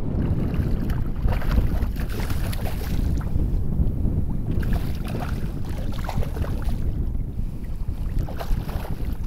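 Steady wind rumble on the microphone over shallow saltwater lapping and splashing, as a hooked redfish thrashes at the surface.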